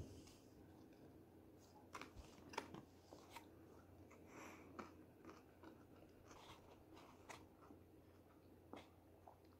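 Faint chewing of a mouthful of sushi with the mouth closed, with a few scattered soft clicks over quiet room tone.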